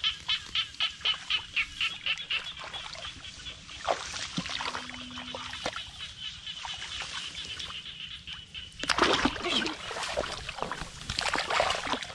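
Hands splashing and sloshing in shallow muddy rice-paddy water, loudest from about nine seconds in. Before that, a quick run of short animal calls, about four or five a second, over a steady high hum.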